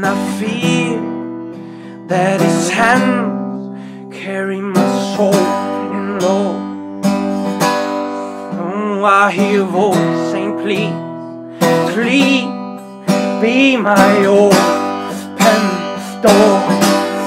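Acoustic guitar strummed and picked in a slow song, with chords struck anew every couple of seconds and left ringing, and a man's voice singing over it with wavering, gliding notes.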